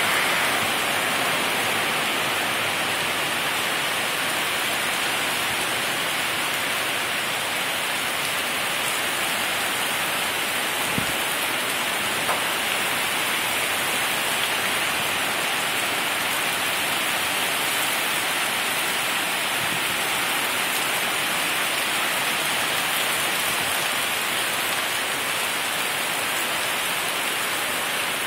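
Heavy rain pouring down in a downpour: a steady, even hiss, with two small knocks near the middle.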